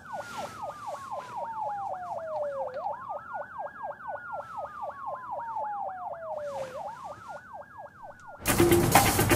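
Two police sirens sound together: one wails, rising and falling slowly about every four seconds, while the other yelps in rapid sweeps several times a second. Near the end, loud music with drum hits cuts in suddenly.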